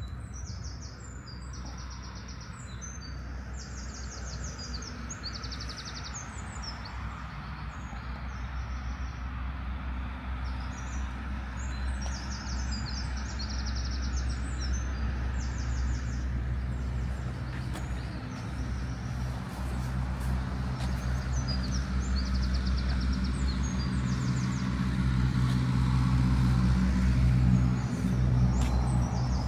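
Small songbirds singing, with quick chirps and rapid trills, over a steady low rumble of road traffic that grows louder near the end.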